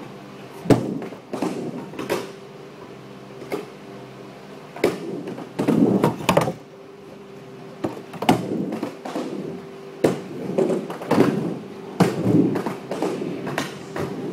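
Skateboard on wooden plywood ramps: wheels rolling and a series of sharp clacks and thuds as the board strikes the deck and coping, irregularly spaced, over a steady low hum.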